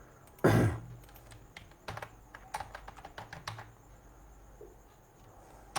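Computer keyboard being typed on: scattered, irregular key clicks, with one louder short noise about half a second in.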